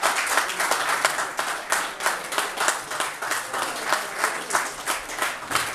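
Applause from a small audience, many hands clapping out of step without a break.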